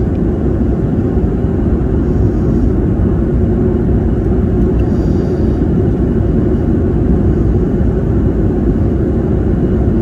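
Steady, deep rumble of engine and airflow noise inside an airliner cabin at cruising altitude, holding an even level.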